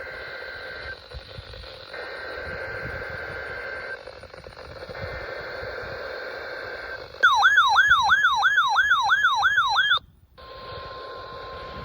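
NOAA Weather Radio test alert. It opens with three screechy SAME digital header bursts separated by short pauses. Next comes a loud warbling siren-like electronic alarm for about three seconds. After a brief silence, the steady 1050 Hz weather alert tone begins near the end.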